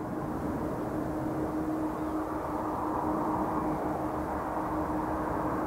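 Jet engines of a Boeing 767-300ER airliner on short final approach: a steady rumbling noise with a steady hum, growing gradually louder as the aircraft comes down toward the runway.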